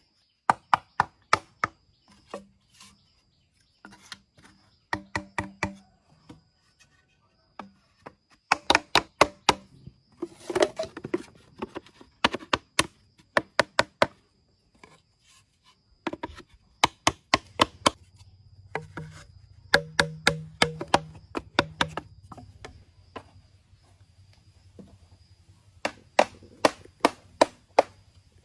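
Bursts of rapid chopping strikes, about four or five a second, in runs of several blows with short pauses between, like a blade hacking into wood.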